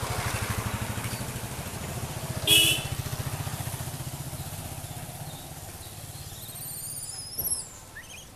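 A motor vehicle's engine, likely a motorcycle, running with a fast pulsing rumble that fades away, with a short horn toot about two and a half seconds in. High rising chirps near the end.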